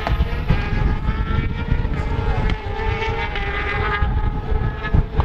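Several 600cc racing motorcycles running on the track, their engine notes overlapping and shifting in pitch as they take a corner and accelerate away.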